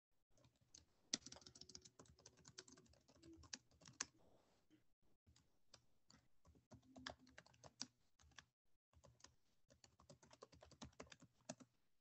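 Faint typing on a computer keyboard: quick runs of key clicks, pausing briefly twice.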